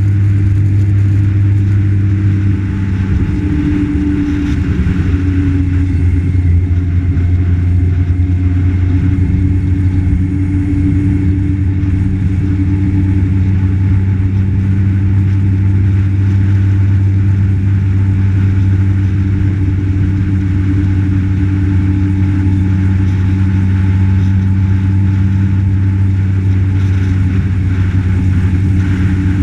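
A road vehicle's engine running at a steady cruising speed, a constant low drone with wind and road noise, heard from a camera mounted on the moving vehicle.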